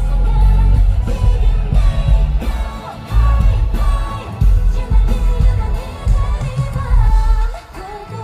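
Loud pop-rock song with singing over a heavy bass line; the music falls away near the end.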